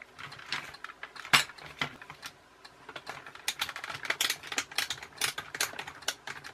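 Plastic clicks and taps from a toy RC car being handled and turned over on a workbench mat, with one sharp knock about a second and a half in and a quick run of light clicks through the second half.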